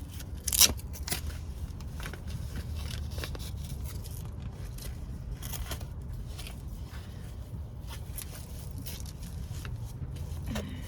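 Rustling and scraping of ankle-weight straps being fastened by hand, with one sharp, loud scrape about half a second in, over a steady low hum.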